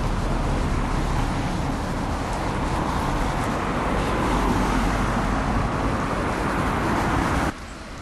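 Cars passing on a road: a steady rush of tyre and engine noise that swells about halfway through and stops abruptly near the end.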